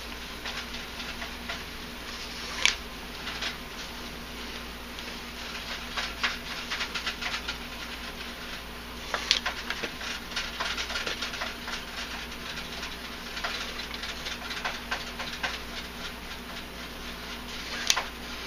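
Nylon paracord rustling and swishing as it is pulled through loops and drawn tight into Cobra knots, with many small scratchy ticks and a few sharper swishes, over a faint steady hum.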